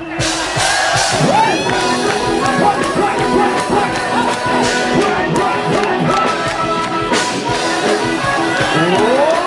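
Live rock band playing loud through a stage PA, with electric bass, drums and a singer.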